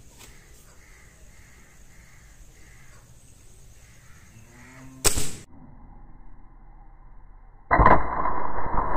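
Artemis SR-1000S break-barrel air rifle fired once about five seconds in: a sharp, loud crack from a pellet shot with a drop of diesel fuel behind it, which ignites in the compression (dieseling) to give more power. Crows caw faintly before the shot. Near the end a long, dull, muffled rush follows.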